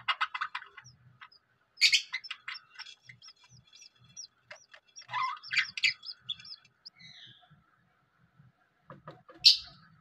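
Budgerigars chirping in quick bursts of short, curving calls, with one loud sharp call near the end.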